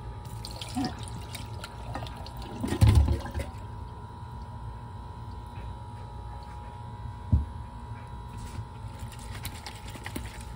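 Brine and artichoke hearts poured from a can into a plastic colander in a stainless steel sink, splashing and plopping, loudest about three seconds in, with a single knock about seven seconds in. A steady hum runs underneath.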